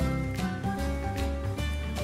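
Background music: a melody of short notes over a bass line.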